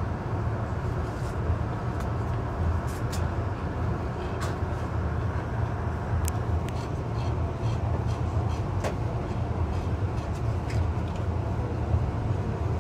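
Running noise inside a Tobu N100 series Spacia X electric limited express train: a steady low rumble, with a few faint clicks here and there.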